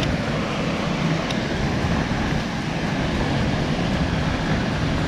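Waterfalls rushing: a steady, even roar of falling water.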